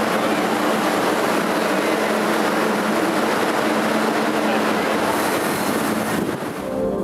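Subway train running at speed, a steady loud rush of wheel and rail noise, fading out near the end.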